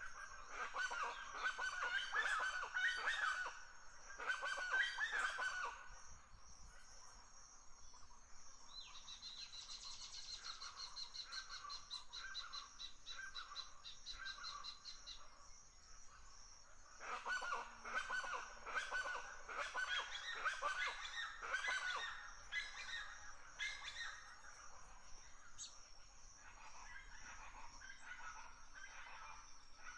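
Birds calling in bouts of rapid, repeated calls, at the start and again past the middle. A fast, high trill comes in between.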